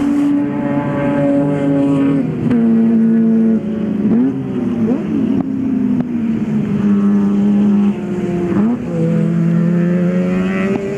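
Mazda 13B peripheral-port two-rotor rotary engine in a race car running hard on track. Its pitch drops in steps a couple of times, swoops down and back up, then dips and climbs again near the end as the driver lifts and changes gear.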